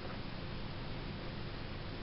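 Steady background noise: an even hiss over a low rumble, with no distinct event.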